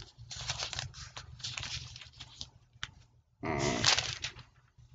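Scratchy rustling and handling noise in several bursts, with a single click near the middle. About three and a half seconds in comes a louder, breathy burst that sounds like a murmur or exhale.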